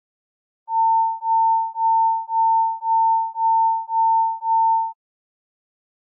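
Emergency alert attention tone: a single pure electronic beep a little below 1 kHz, sounded eight times in quick succession over about four seconds.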